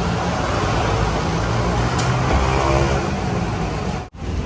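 A vehicle engine running steadily with a low hum.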